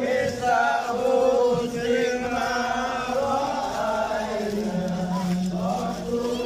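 A group of men's and boys' voices chanting together in unison, a devotional Islamic chant sung in long, drawn-out melodic notes.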